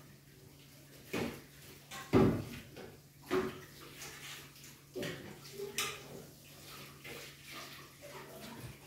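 Washing dishes by hand at a sink: irregular knocks and clatters of bowls and pans against each other and the basin, with some water.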